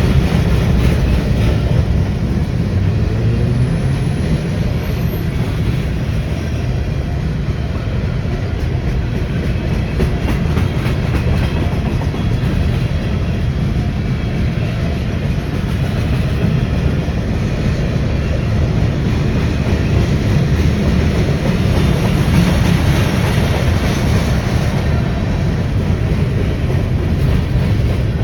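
Freight train of tank cars rolling past close by: a steady, loud rumble of steel wheels on rail, with faint repeated clicking over the rail joints.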